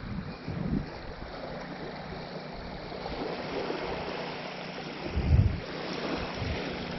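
Small waves lapping and washing onto a sandy lakeshore, with wind gusting on the microphone in low rumbles, the strongest about five seconds in.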